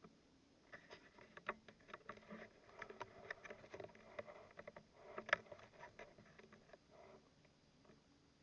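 Near silence with faint, scattered small clicks and rustles, the clearest one about five seconds in.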